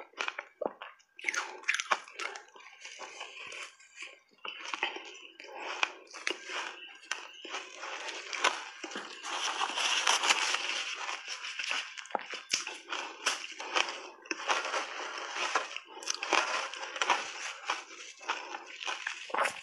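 A mouthful of crunchy shaved ice being chewed, with a dense run of crisp crunches.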